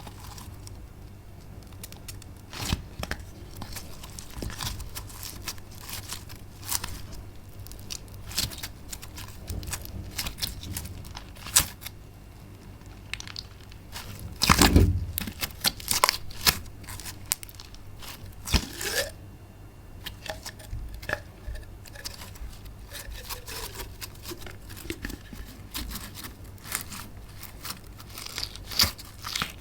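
Slime being squeezed and stretched by hand: a run of crackling pops and clicks, with a louder squelch about halfway through.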